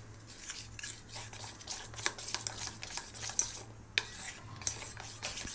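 Cake batter being beaten by hand in a stainless-steel bowl: an uneven scraping of a utensil against the metal, with a few sharp clinks on the bowl.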